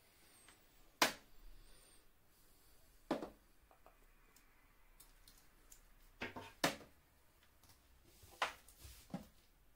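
Handling noise from a printer's coiled power cord and plug being unwrapped: about half a dozen sharp clicks and knocks, the loudest about a second in.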